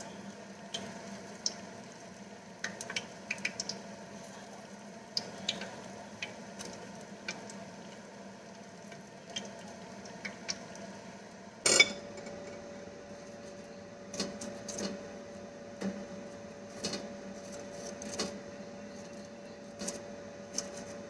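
Light clinks and taps of a wire spider skimmer and wooden chopsticks against a deep frying pan as spring rolls are turned and lifted out of the hot oil. A sharper knock comes about halfway through, after which a faint steady hum runs under the scattered clinks.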